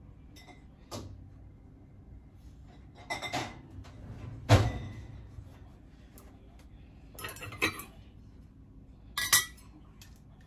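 Glass quart canning jars being set down on a kitchen counter, a series of clinks and knocks, the loudest about four and a half seconds in.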